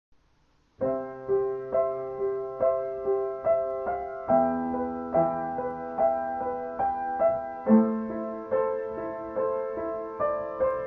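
Background piano music with evenly spaced notes, starting about a second in.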